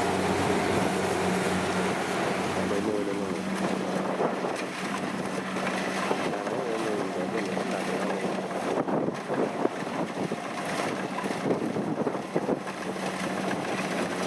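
Kubota DC-70 rice combine harvester running steadily under a constant engine hum, with irregular short knocks and clatter through the second half.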